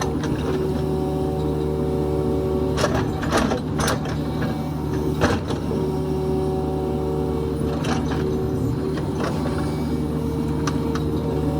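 Kubota KX71-3 mini excavator's diesel engine running steadily, with several sharp knocks and clunks from the machine at work, most of them about three to five seconds in and one near eight seconds.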